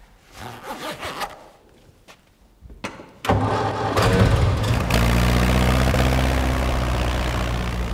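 A few soft rustles and knocks, then about three seconds in an old tractor engine starts suddenly and settles into a steady run.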